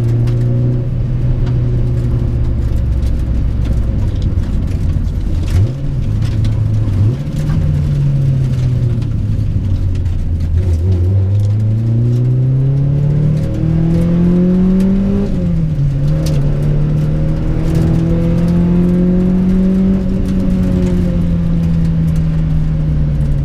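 1997 Honda Prelude's H22A 2.2-litre four-cylinder VTEC engine running while driving. It blips up twice, pulls up steadily through the revs, drops suddenly about fifteen seconds in as a gear change, climbs gently again and eases off near the end. The driver is pretty sure it has an exhaust leak.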